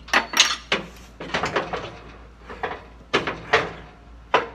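Hydraulic lift cylinder of a skid steer clanking and knocking as its rod is pushed in by hand: a run of sharp, irregular metallic clanks with a short ring, some coming in quick clusters.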